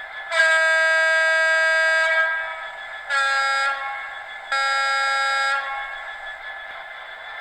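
Class 66 diesel locomotive horn from a model's Loksound v4 DCC sound decoder (Legobiffoman sound), played through its twin speakers: three loud blasts, a long one about two seconds, then a short one and a medium one on a different pitch. A faint steady engine idle sound runs underneath.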